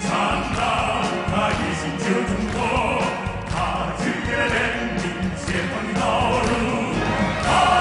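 A group of men singing together in Korean, backed by an orchestra with strings.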